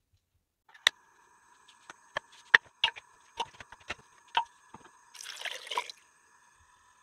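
Pieces of blanched beef short rib put one by one into an aluminium pressure cooker, a series of sharp knocks against the pot. Near the end, water is poured in for about a second.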